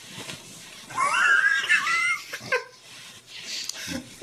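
A man's high-pitched giggling laugh, starting about a second in and lasting about a second and a half, with a few fainter laughing breaths after it.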